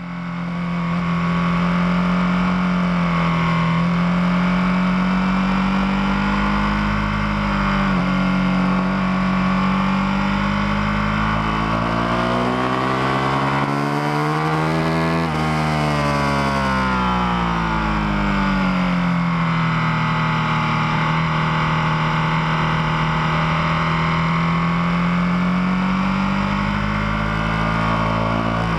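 Ducati 1299 Panigale S's L-twin engine running hard on track, heard from an onboard camera with wind rush. The engine note steps at a gear change about eight seconds in and swings down and back up around the middle.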